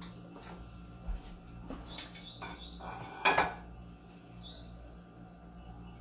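Cutlery and dishes clinking and clattering on a plate as food is served out, a few separate knocks with the loudest clatter a little past three seconds in. Faint bird chirps sound in the background.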